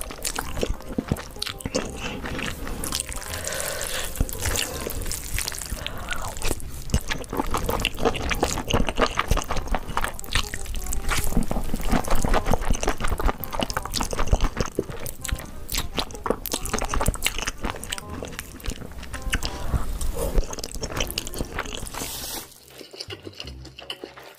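Close-miked eating sounds: wet slurping and chewing of sauce-coated noodles, full of quick, irregular smacking clicks. The sound drops off sharply near the end.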